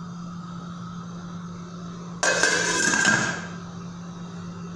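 Glass pot lid with a steel rim set onto a stainless-steel saucepan: one sudden clank of glass and metal about two seconds in, ringing for about a second before it dies away.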